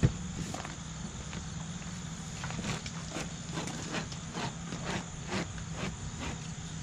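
A plastic cup knocked down on a plastic-sheeted worktable, then a run of light irregular taps and crackles as fingers press and smooth a sheet of fiberglass cloth. A steady low hum runs underneath.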